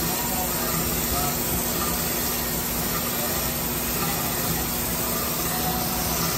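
Storm Vulcan 15AW crankshaft grinder running, its wheel grinding a rod journal of a 454 big-block Chevy crankshaft under coolant: a steady hiss with a low steady hum beneath it.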